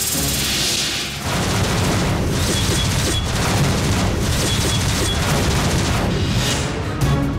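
Dramatic film background score with heavy booming hits and a dense low rumble, kicking in strongly about a second in.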